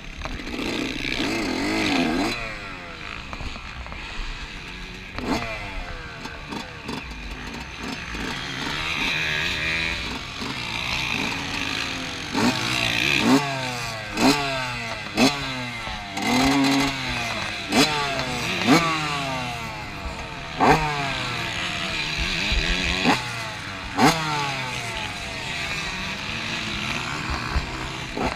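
Yamaha YZ125 two-stroke engine revving hard around a motocross track, heard on board: its pitch climbs in quick rising sweeps and falls away again at each shift or throttle-off, over and over, with sharp knocks between.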